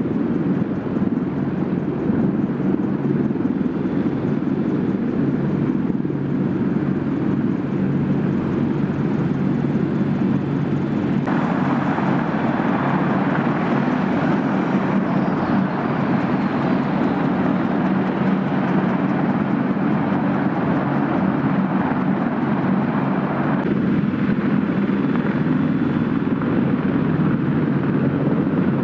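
Several AH-64 Apache helicopters hovering and taking off, with the steady beat of their rotors and the running of their twin turboshaft engines. The sound gets louder and brighter from about eleven seconds in, while one Apache is close on the runway, then drops back near the end.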